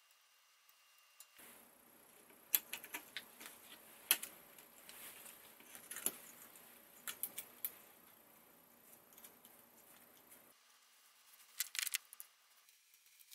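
Light, irregular clicks and clinks of small hardware being handled by hand: a board of copper electromagnet coils for a magnetic levitation kit being turned and fitted. The clicks are scattered through the middle, with a quick cluster near the end.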